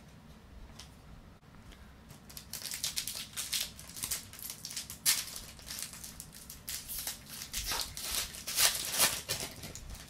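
A foil trading-card pack wrapper being torn open and crinkled by hand. It is a rapid run of crackling rustles that begins about two seconds in, with the loudest crackles in the middle and near the end.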